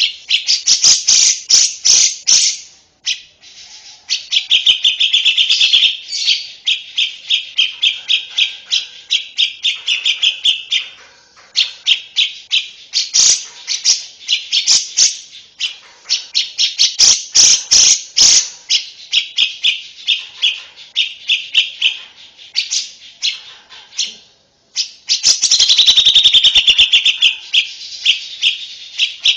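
A lovebird singing: long runs of rapid, high chirps that break off briefly a few times and start again.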